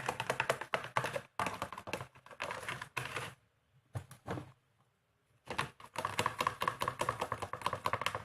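A stirring stick clicking and scraping rapidly against a plastic container as glue and yellow colouring are mixed. It pauses briefly in the middle, then the rapid clicking starts again.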